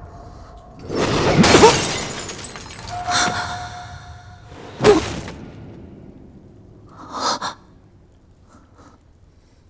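Glass shattering in a loud crash about a second in, with debris scattering after. A sharp hit follows about five seconds in, and a shorter clatter comes near the end.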